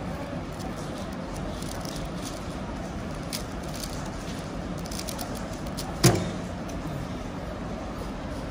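Quick, scattered clicking of a Valk Elite M 3x3 speedcube being turned over a hall's steady murmur. About six seconds in comes one sharp, loud knock as the solve ends: the cube is set down and the hands hit the timer pads.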